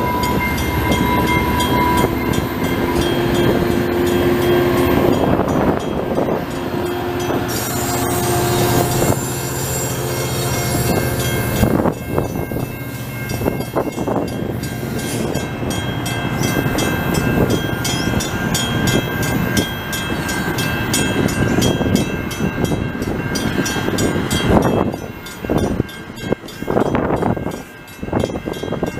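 Diesel-hauled commuter train passing close by: the locomotive runs past, then bilevel passenger coaches roll by, their wheels clicking over the rail joints. The sound dips and becomes uneven near the end.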